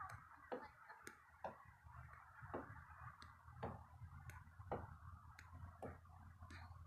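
Faint, regular taps of sneakers landing on wooden dock boards during standing kicks, about two a second, over a low steady hum.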